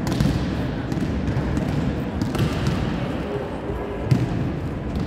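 Volleyballs being struck and bouncing on a sports-hall court, a few sharp thuds, the loudest about four seconds in, echoing in the large hall over a steady background hum.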